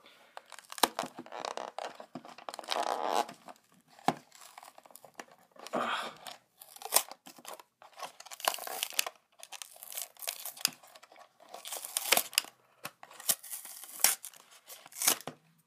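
Cardboard-and-plastic toy blister pack being torn open by hand: the card backing ripping and the clear plastic blister crinkling, in irregular bursts with sharp crackles.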